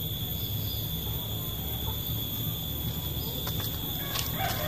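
Insects, likely crickets, chirping steadily in a high, thin tone over a low steady outdoor rumble, with a few faint clicks near the end.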